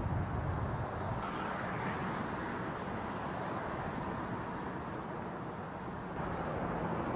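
Steady outdoor background noise, a low rumble and hiss with no distinct events. It changes abruptly about six seconds in, at a cut to another shot.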